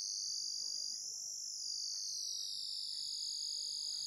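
Electronic ultrasonic rat repeller sounding a high-pitched tone through its tweeter speaker. Its pitch rises about a second in and then slowly falls as the frequency knob is turned.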